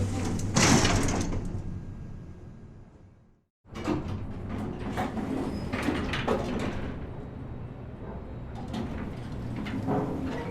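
Elevator sound effects: a steady low hum with a loud sliding rush about a second in that fades away, typical of elevator doors moving, then after a short silent break another elevator recording with a steady hum and a series of clicks and knocks.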